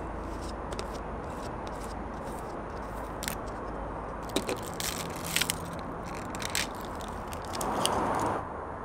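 Plastic jar being opened by hand: light clicks and crackling as the screw-off plastic cap and foil seal are handled, with a louder brief rustle shortly before the end. A steady background rumble runs underneath.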